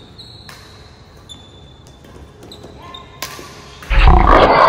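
Badminton rally: a few sharp racket hits on the shuttlecock, with shoes squeaking on the court floor. About four seconds in, a sudden loud burst of noise cuts in and runs to the end.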